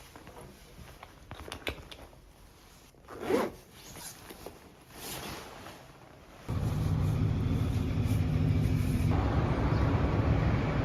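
A few light handling clicks and a short zip-like scrape. About six and a half seconds in, the sound switches abruptly to a steady low rumble of street traffic.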